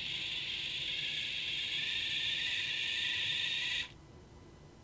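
AppBot Riley smart home robot's small drive motors whirring steadily as it rolls forward, cutting off suddenly about four seconds in when it stops.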